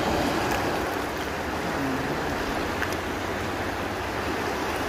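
Steady rushing of a fast-flowing, silty river running over rocks.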